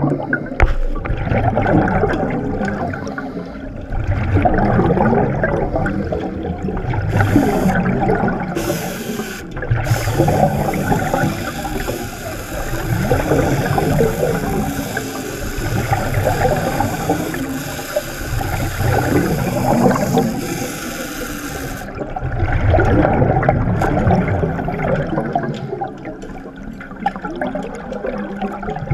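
Underwater bubbling and gurgling from a helmeted diver's exhaust bubbles, swelling and fading about every three to four seconds with his breathing. A steady hiss joins in from about ten seconds in until about twenty-two seconds.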